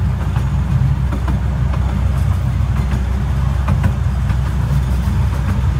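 Open passenger carriage of a 12-inch gauge miniature railway running along the track: a steady low rumble of wheels on rail, with scattered light clicks.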